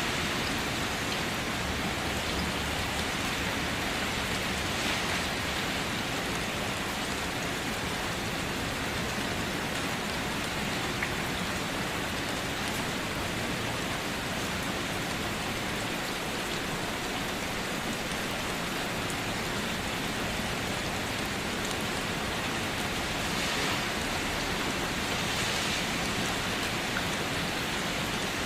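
Steady rain falling on a surface, an even hiss with a few distinct drops ticking.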